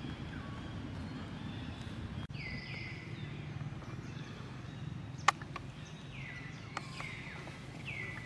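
High-pitched animal calls, three or four of them, each dropping steeply in pitch and then holding, over a steady low rumble. A sharp click about five seconds in.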